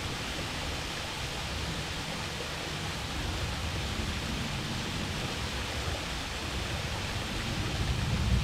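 Fujigata waterfall on a mountain stream: a steady rush of falling water, even and unbroken.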